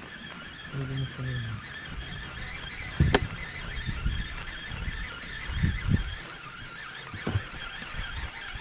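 A few sharp knocks and thumps on a fishing boat, the loudest about three seconds in and a pair near six seconds, over a faint steady outdoor background.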